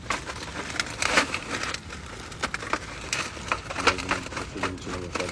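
Dry wood cracking and snapping in irregular sharp cracks, some louder than others.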